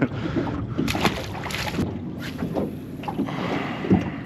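Wind buffeting the microphone over water lapping against a small aluminum boat's hull, with a couple of short knocks about a second in and near the end.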